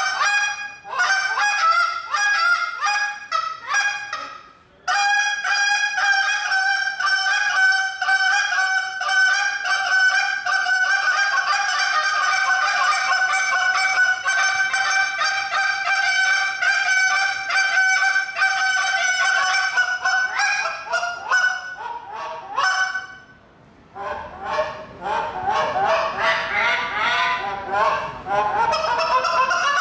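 Hand-held goose call blown as a contest routine, imitating Canada goose honks and clucks. First comes a string of short, separate notes, then a long run of rapid notes at an even pitch for about fifteen seconds. After a brief pause near the end, wavering calls follow.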